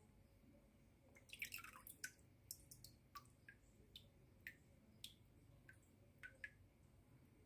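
Faint drips and small splashes of shallow water as a common snapping turtle shifts about in a plastic tub: a quick cluster about a second in, then scattered single drips.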